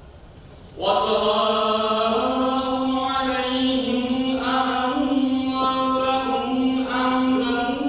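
A man's voice chanting into a microphone, starting about a second in: one long drawn-out note that wavers slowly and steps up slightly in pitch twice, without breaking into words.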